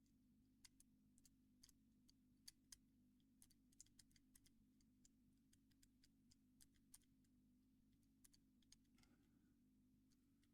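Faint, irregular small clicks of a Squire CP50 combination padlock's number wheels being turned and tried by hand, over a low steady hum.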